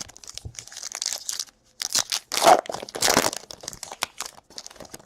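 Plastic foil wrapper of a trading-card pack crinkling and tearing as it is ripped open, in irregular rustles that are loudest in the middle.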